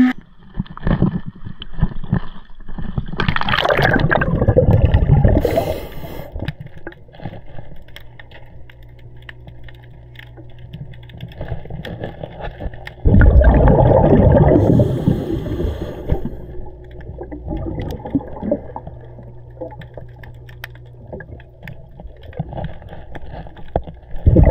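Underwater sound of a scuba diver's exhaled bubbles: loud gurgling bursts from the regulator about every ten seconds, with a low steady hum and quieter bubbling between breaths.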